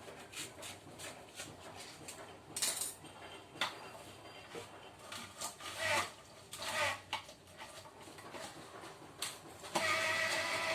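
Clatter and knocks of kitchen utensils and juicer parts being handled, then about a second before the end an electric citrus juicer's motor switches on and runs with a steady hum.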